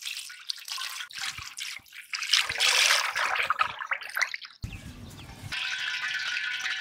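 Cooking oil poured in a stream from a steel bowl into an iron kadai, splashing and trickling on the metal. The pouring stops about four and a half seconds in, and a steady hiss with a few held tones follows.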